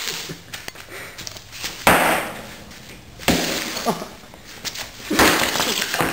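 An iPod being smashed: three hard crashing blows, roughly a second and a half apart, each trailing off in a short breaking clatter.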